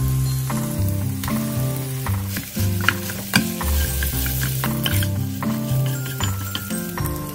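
Spam, green onion and rice sizzling as they fry in a pan, stirred with a wooden spatula, with a couple of sharper scrapes about three seconds in. Background music plays along.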